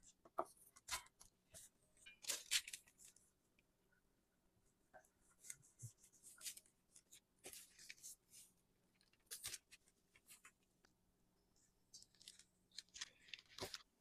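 Hot oil crackling and sizzling in short, uneven bursts around dough rounds frying in a pan, with scattered sharp clicks.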